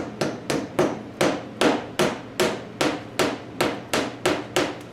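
Hammer driving wooden pegs into a table top's breadboard-end joint: a steady run of about fourteen sharp blows, roughly three a second.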